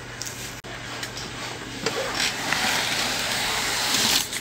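Cardboard speaker box being opened by hand: cardboard and packaging scraping and rustling with a few sharp clicks, growing louder from about two seconds in, over a steady low hum.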